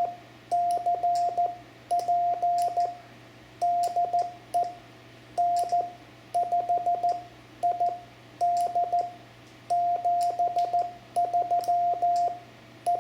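Morse code (CW) from a Yaesu FT-710 transceiver's sidetone: a single pure beep of about 700 Hz, keyed in slow dots and dashes with faint clicks on the keying. It sends the closing of a contact: 73, TU, the call signs and SK.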